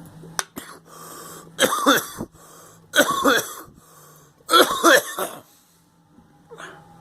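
A person coughing three times, each a harsh, voiced burst about a second and a half apart, from someone sick with a cold.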